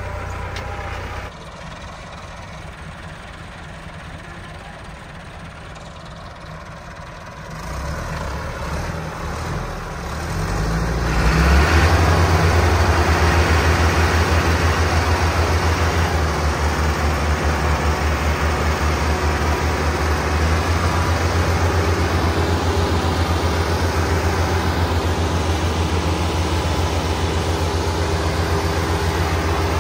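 Massey Ferguson tractor diesel engines working hard, one tractor towing another that pulls a heavily loaded sugarcane trolley. The engine sound is fainter at first, builds from about eight seconds in, and is loud and steady with an even, rapid firing beat from about eleven seconds on.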